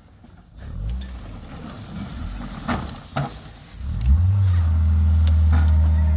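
Wrecked Honda CR-V's engine under load driving off-road. The revs rise from about half a second in, with a few sharp knocks, then settle about four seconds in into a loud, steady, high drone.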